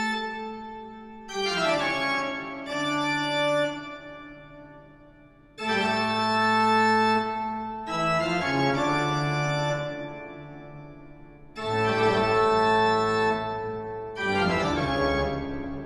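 Background music: slow organ chords, each held and slowly fading, with a new chord coming in every two to four seconds.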